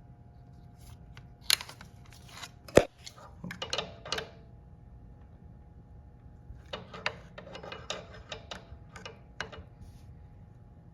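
Hand tools and metal parts clicking and clattering as a motorcycle is taken apart, in two bouts of irregular clicks, with one sharp metallic knock about three seconds in, over a faint steady hum.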